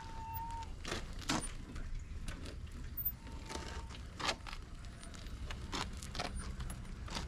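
Scattered light clicks and taps of a cut motorcycle drive chain being worked off its sprocket, over a low steady rumble.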